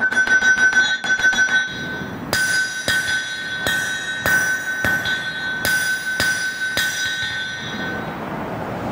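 A 3-pound engineer's hammer striking red-hot steel on an anvil, tapering a sword's tang. A quick run of light blows for the first second and a half is followed by about eight slower, heavier blows, each leaving the anvil ringing. The hammering stops about a second before the end.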